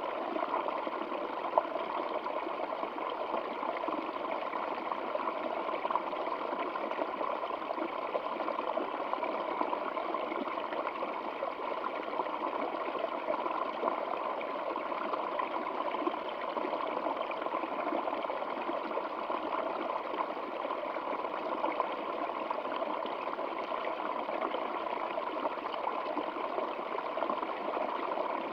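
Stream water flowing and burbling steadily over stones, with small splashes.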